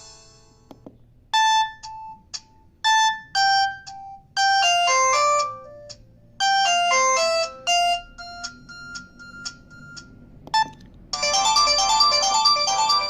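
Built-in ringtones of a Samsung GT-E1070 phone playing: a sparse melody of single short electronic notes with gaps between them, then about eleven seconds in a new, denser many-note ringtone starts.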